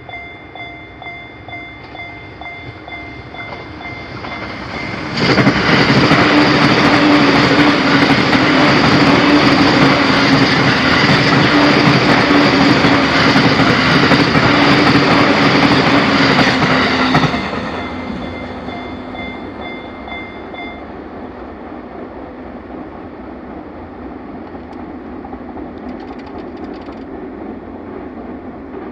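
Japanese level-crossing warning bell ringing in steady repeated electronic dings. About five seconds in, a JR Sobu Main Line train passes through the crossing loudly for about twelve seconds. The bell stops a few seconds after the train has gone, leaving a fading rumble.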